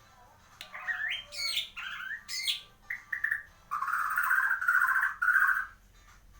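Shama (murai) singing: a run of quick whistled notes sweeping up and down in pitch, then, about three and a half seconds in, a dense chattering phrase lasting about two seconds.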